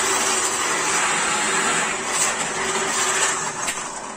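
Schulz FSB16 bench drill press running, its bit boring a hole into a wooden stool leg, with a steady motor hum under the cutting noise. The cutting noise eases off from about three seconds in as the bit is raised out of the finished hole.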